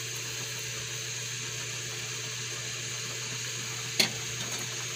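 Fish and alugbati broth boiling hard in a pan, a steady bubbling hiss with a low hum under it. One sharp click about four seconds in.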